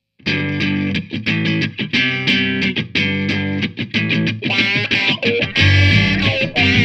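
Guitar-led rock music begins abruptly just after the start, with quick strummed chords. It turns fuller and heavier, with more bass, in the last second or so.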